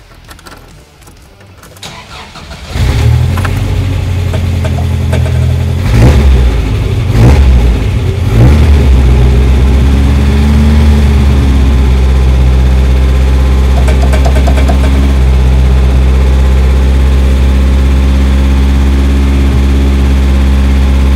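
A 1987 Volkswagen Syncro camper's engine starts about three seconds in on its newly installed lithium starting battery. It is revved a few times and then settles into a steady idle.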